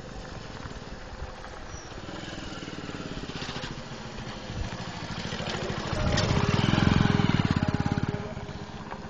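A small engine passing close by, its rapid even firing pulses growing louder to a peak about seven seconds in, then fading away.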